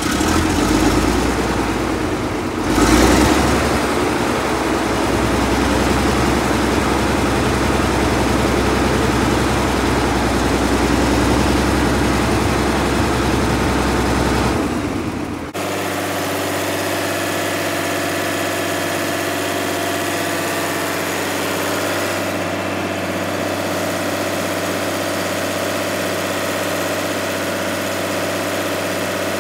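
Allis-Chalmers HD-21A crawler dozer's Buda diesel engine running steadily just after being started, with a brief louder swell about three seconds in. About halfway through the sound changes abruptly to a steadier idle with less deep rumble.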